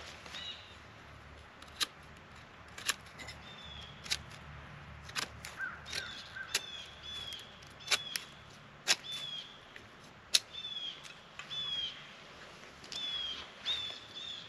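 A bird calling over and over with short, high, down-slurred chirps, joined by a dozen or so sharp clicks and knocks scattered through.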